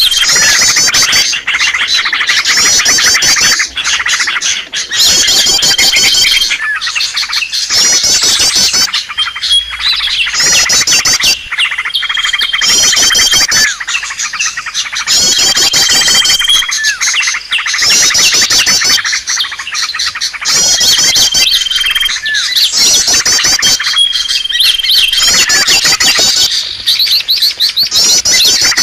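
Bird-lure recording of small songbirds: a dense, loud layering of rapid chirps and trills, with a short steady whistle note recurring every few seconds in a repeating pattern.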